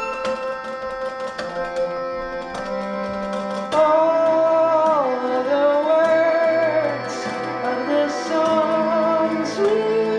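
Musical saw (singing saw) being played: a single wavering, vibrato tone that slides down in pitch and back up, coming in louder about four seconds in over softer held notes.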